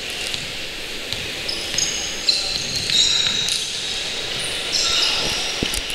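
Basketball play on a wooden gym court: the ball bouncing and sneakers squeaking on the floor, with bursts of short high squeaks about two seconds in and again near five seconds, and a solid knock near the end.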